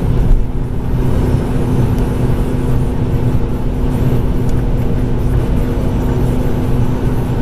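Ford Focus MK2's 1.6 petrol four-cylinder engine cruising in fifth gear just under 4,000 rpm, heard from inside the cabin as a steady drone over tyre and wind noise at about 135 km/h.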